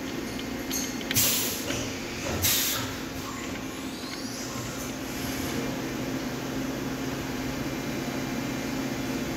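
Steady hum of machine-shop machinery running, with two short, sharp hisses about a second and two and a half seconds in.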